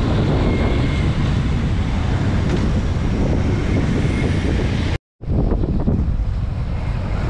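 Wind rushing over the microphone of a moving motorcycle, with the bike's engine and road noise underneath. The sound drops out for a moment about five seconds in, then carries on.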